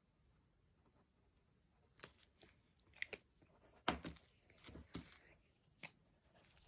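Plastic liquid chalk markers being handled and swapped: a scattered run of small clicks and knocks from caps and barrels, starting about two seconds in, the sharpest knock about four seconds in.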